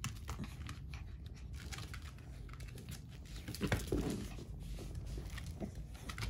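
A Yorkshire terrier shaking and dragging a large plush toy in its mouth: fabric rustling, chewing and scuffing with many small clicks, loudest about three and a half seconds in.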